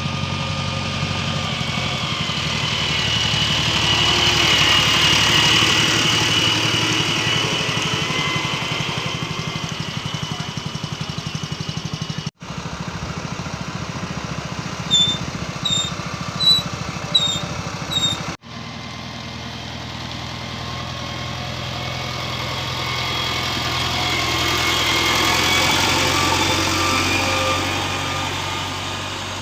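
JCB 3DX backhoe loader's diesel engine running steadily under work, its level and a high whine swelling and fading twice. The sound drops out sharply twice at cuts, and a few short high chirps come between them.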